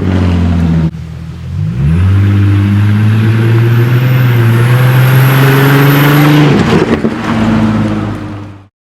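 2007 Ford Mustang's 4.0-litre V6, straight-piped and fitted with a cold air intake and throttle body spacer, being revved. The revs drop about a second in, rise again and hold steady for about four seconds, then fall back. The sound cuts off suddenly near the end.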